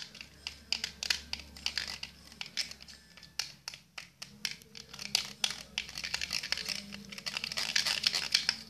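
A fork scraping and clicking against a container while stirring a sticky mix of dish soap and shampoo. The quick, irregular scrapes grow busier toward the end.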